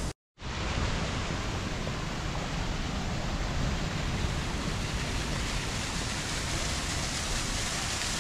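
Small waterfall pouring into a rock pool, a steady rushing splash. The sound drops out for a moment right at the start.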